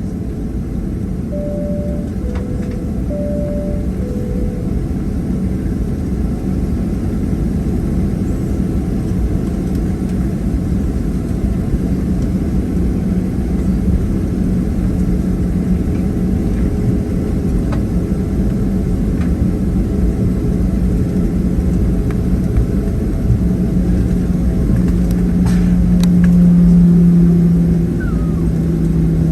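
Steady low rumble and hum of a Boeing 737-700's CFM56-7B jet engines heard inside the passenger cabin while the jet taxis, growing slowly louder and swelling briefly near the end. A two-note high-low chime sounds twice near the start.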